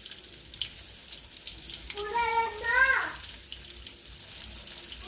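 Coated chicken pieces deep-frying in hot oil: a steady sizzle with scattered small pops. A child's high voice cuts in briefly about two seconds in.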